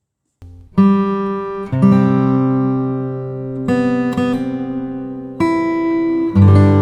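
Music: acoustic guitar playing strummed chords that change every second or two. It starts suddenly about half a second in, out of dead silence.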